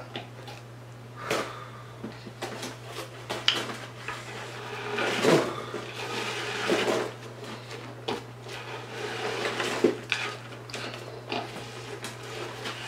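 Fried shrimp and fish pieces being handled and shifted on a wooden cutting board: scattered light clicks, knocks and rustles at irregular moments, over a steady low hum.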